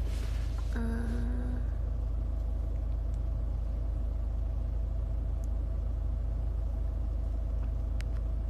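Steady low rumble inside a car's cabin, picked up by a phone's microphone.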